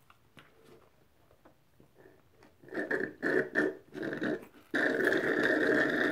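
Slurping the last of a blended drink through a straw from a plastic cup: a run of short slurps a few seconds in, then one long, steady slurp of nearly two seconds near the end as the cup runs dry.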